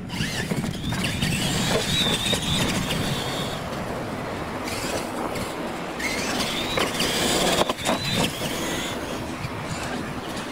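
Electric radio-controlled monster trucks racing over dirt. Their motors give a high whine that rises and then holds, twice, over steady tyre and wind noise. A sharp knock comes about seven and a half seconds in.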